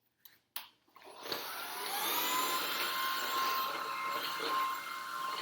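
Shark cordless stick vacuum switched on: a couple of clicks, then about a second in the motor spins up with a rising whine and settles into a steady run.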